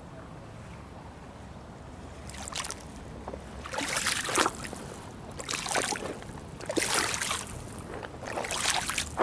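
Water splashing and sloshing in repeated short surges, starting about two seconds in and coming roughly every second and a half.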